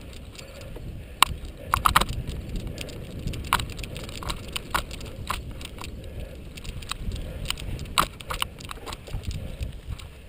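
Cyclocross bike being ridden fast over bumpy grass and dirt: a steady low rolling rumble with irregular sharp clicks and rattles from the bike as it bounces over the rough ground.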